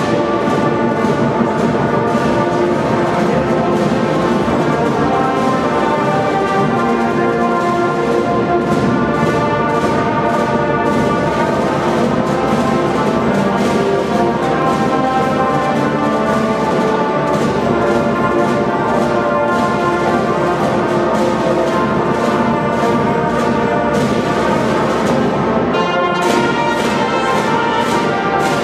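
Youth marching band playing: brass instruments carry a sustained melody over side drums and bass drum. Near the end a quick, regular run of drum strokes stands out.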